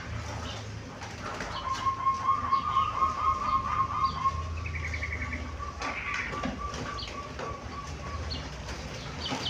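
Zebra dove (perkutut) of the pale Udan Mas colour cooing: a long rolling, trilled coo that starts about a second and a half in and thins out and fades near the end. Faint chirps sound here and there.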